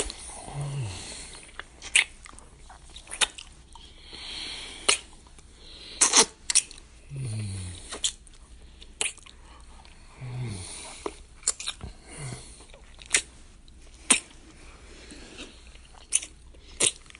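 Close-up kissing sounds: wet lip smacks at an irregular pace, roughly one or two a second, with breathing and a few short low hums that drop in pitch.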